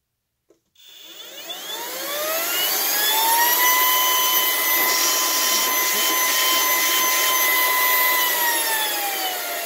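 Ryobi 18-volt ONE+ cordless stick vacuum motor starting and spinning up to max speed: a rising whine over a rush of air that settles into a steady high whine. Near the end it drops in pitch as the vacuum is switched to its low speed.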